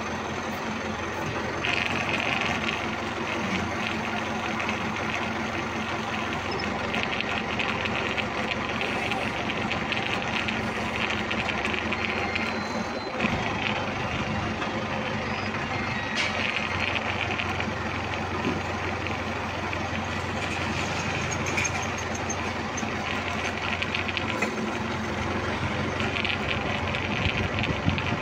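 Forklift engine running steadily, heard from the driver's seat, with a few brief stretches of brighter, higher sound over it.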